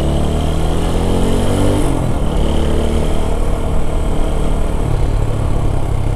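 Motorcycle engine accelerating under the rider. Its pitch rises for about two seconds, drops at a gear change, rises again, then levels off near the end as the rider eases off.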